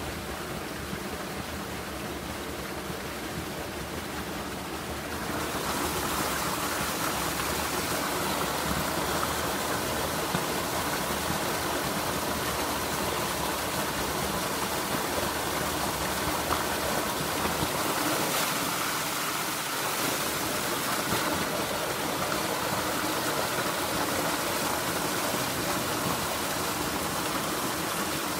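River water rushing steadily, a swollen river running high. The rush grows louder and brighter about five seconds in, then holds steady.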